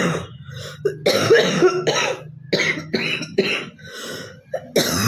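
A girl coughing: a string of short coughs in quick succession, then a pause and one more cough near the end.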